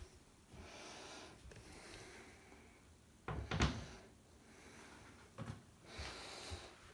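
Handling noise from a phone held against a cotton shirt: soft rustling as it shifts, with a clunk about three and a half seconds in and a smaller knock about two seconds later.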